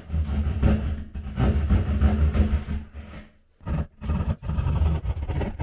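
Keyhole saw cutting through a drywall ceiling in repeated back-and-forth strokes, with a short pause about three and a half seconds in.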